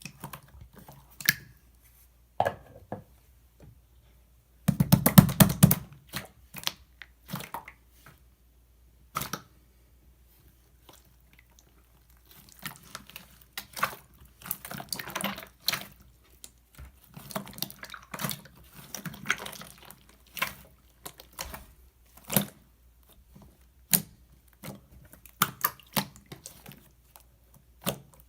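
Slime being squeezed, stretched and pressed by hand, making irregular sticky clicks, pops and crackles, with a fast run of pops about five seconds in and busier crackling in the second half.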